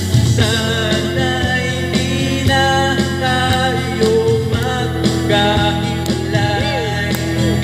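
A man singing into a microphone over instrumental backing music, a Tagalog love song performed live, with the voice gliding and wavering on held notes.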